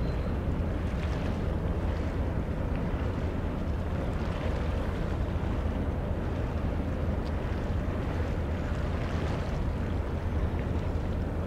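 Steady low rumble of wind on the microphone with sea noise, the hiss swelling gently every few seconds.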